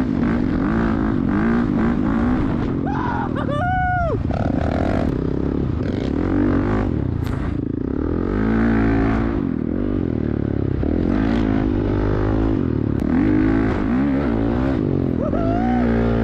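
Honda dirt bike's single-cylinder four-stroke engine running under the rider, revving up and down over and over as it rides across sand.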